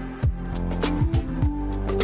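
Background music: held bass and synth notes over a steady beat of deep drum hits that drop in pitch, with sharp percussion ticks in between.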